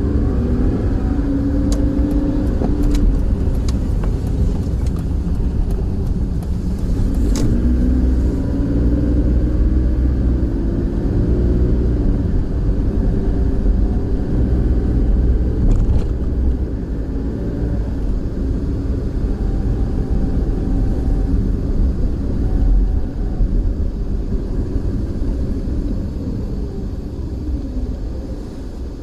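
Car driving, its engine and road noise rumbling steadily, with the engine's pitch rising and falling several times as it speeds up and slows.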